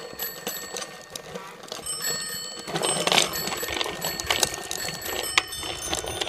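Child's bicycle with training wheels rolling on a concrete sidewalk: tyres and training wheels rattling with irregular clicks, and short high chirping tones throughout.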